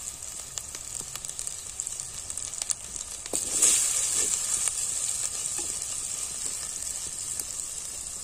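Onion, tomato and spice masala sizzling in hot oil in an earthen clay pot, a steady hiss with small crackles. About three and a half seconds in, it is stirred with a wooden spatula and the sizzle surges louder, then eases.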